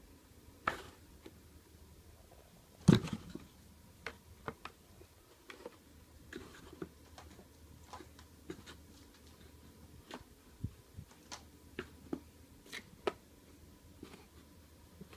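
Kittens batting and pawing at an upside-down cardboard box on a bedsheet: scattered light taps and scrapes on the cardboard, with one louder thump about three seconds in.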